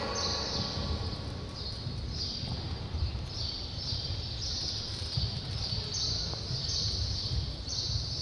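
High-pitched chirping, coming in short spells about once a second, over a low steady rumble.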